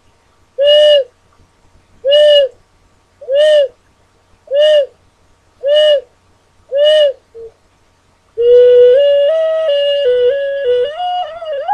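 A six-hole ocarina blown in seven short notes on the same pitch, each bending slightly up and down, then, about eight seconds in, a run of notes stepping up and down. It is being test-played while its tuning is corrected.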